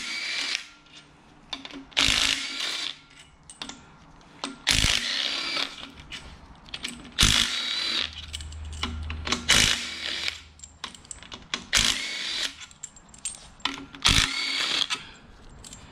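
A small power tool spinning bolts out of a Honda L15B7 engine's front timing cover, in about seven short runs roughly every two seconds. Each run starts with a click and goes on as a brief whine.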